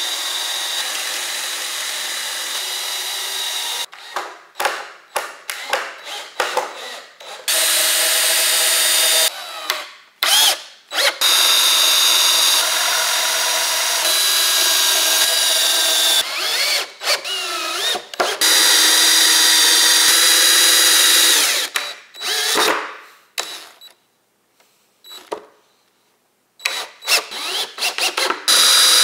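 Cordless drill boring holes into hardwood pallet boards: long steady runs of the motor broken by short stop-start trigger bursts, with a pause of a couple of seconds near the end.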